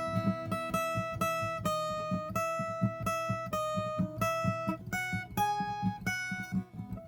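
Viola caipira playing a solo melody: clear single notes ringing out one after another above a quick, steady plucked pattern on the lower strings.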